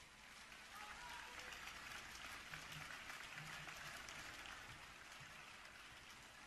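Faint audience applause, a dense patter of many hands clapping that swells about a second in and slowly dies away.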